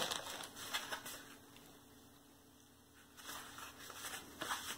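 Faint rustling and crinkling of a clear plastic wrapper and foil MRE ration pouches being handled, in short scattered strokes, with a quiet pause in the middle.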